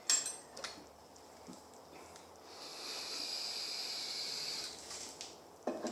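Two sharp metallic clicks, then a steady hiss lasting about two seconds, then a single knock near the end.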